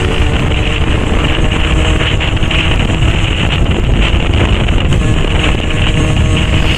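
CPI SM 50 supermoto's 50 cc two-stroke engine running steadily while riding, through its SCR aftermarket exhaust, with heavy wind noise on the handlebar-mounted microphone.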